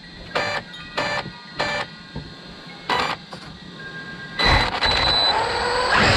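Electric motor of an RC side-by-side whining in four short throttle bursts. About four and a half seconds in, loud heavy rock music starts.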